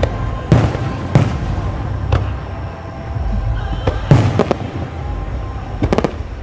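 Aerial fireworks bursting: a series of sharp bangs at irregular intervals, the loudest about four seconds in, with a quick run of pops near the end.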